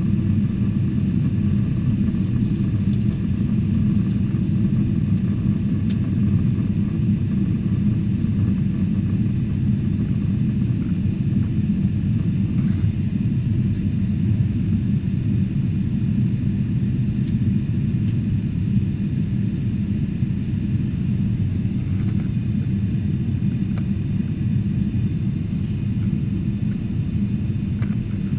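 Steady low rumble of a Boeing 747-400's engines and airflow, heard inside the passenger cabin in flight.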